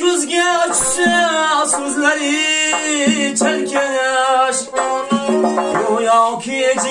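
A man singing long, wavering notes over a plucked tar, a doira frame drum and a Weltmeister accordion in Uzbek folk music.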